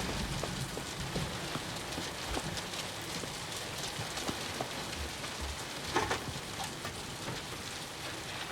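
Steady rain falling, an even hiss with scattered drop taps, and one brief louder sound about six seconds in.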